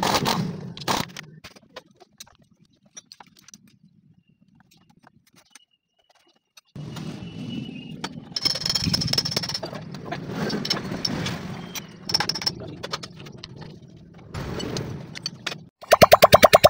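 Metal tools and engine parts clinking and being handled on a dismantled motorcycle engine, with a few sharp clicks at first, a few seconds of near quiet, then longer stretches of irregular clattering. Near the end a fast, evenly pulsing electronic sound effect cuts in.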